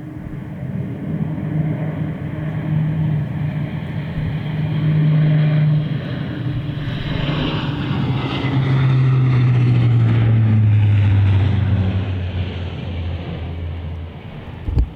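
A four-engine turboprop military transport flying low past, its propeller drone steady and then falling in pitch as it goes by. The drone is loudest a little past the middle and fades toward the end, where a single sharp knock is heard.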